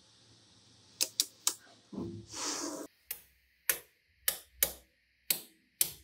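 Small magnetic balls clicking as they snap together: three quick sharp clicks about a second in, a brief rustle around two seconds, then about six more clicks spaced out.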